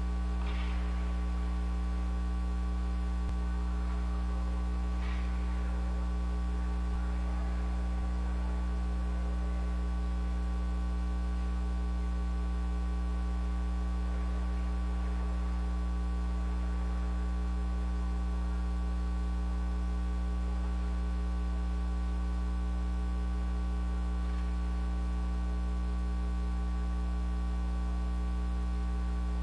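Loud, steady electrical mains hum, a low buzz with its overtones, unchanging throughout. Fainter, irregular sounds come and go above it, briefly near the start and again about five seconds in.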